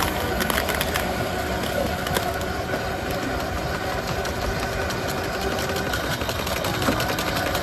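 Commercial centrifugal juicer's motor running steadily while pieces are pushed down its feed chute and ground, with small scattered clicks.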